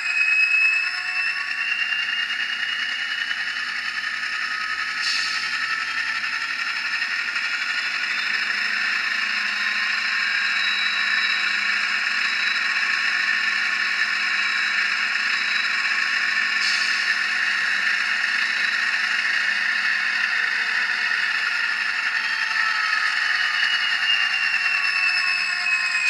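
Factory LokSound Select sound decoder in an Atlas N scale EMD GP30, playing through the tiny speaker in the fuel tank: the diesel engine and turbo throttle up while drive hold keeps the model standing still. The sound climbs in pitch at the start, runs steady and brightens in steps around five and seventeen seconds in, then begins to wind down in the last few seconds. It has a thin tone with no real bass.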